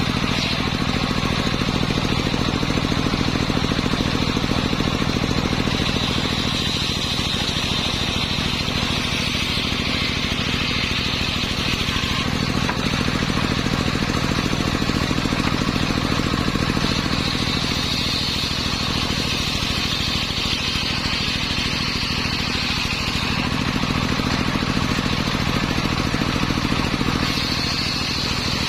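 Homemade circular saw bench running steadily on an engine while cutting timber. Over the low engine hum, a high whine from the blade in the wood shifts several times as pieces are fed through.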